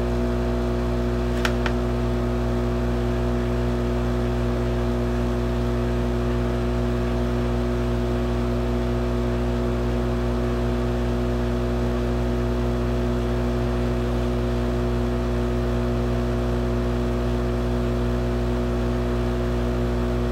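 Hot air rework station's blower running steadily, a constant hum of several tones over an even rush of air from the nozzle, as it blows on a circuit board's solder joints.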